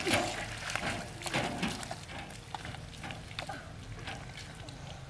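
A metal wheelbarrow is pushed through soft pond mud, its frame and wheel clattering and squeaking in short clicks. The clicks are thickest in the first couple of seconds and grow sparser after.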